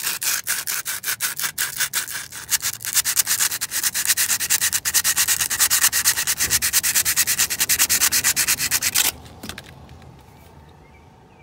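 Brake caliper slide pin being hand-sanded with a piece of sandpaper: rapid, even back-and-forth rubbing strokes, several a second, scrubbing built-up grime and dried grease off the pin. The sanding stops suddenly about nine seconds in.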